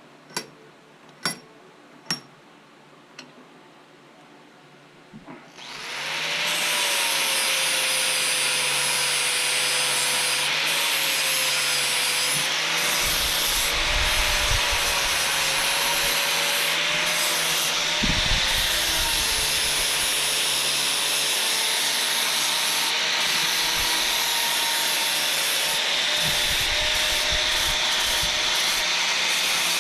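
A few sharp clicks, then about five seconds in a handheld electric power tool spins up and runs steadily, sanding or grinding, its motor pitch wavering slightly as it is pressed against the work.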